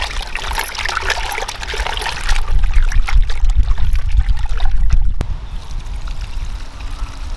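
Water splashing and trickling as curd-soaked elephant foot yam pieces are washed by hand, busiest for the first two seconds or so, over a steady low rumble that grows louder in the middle.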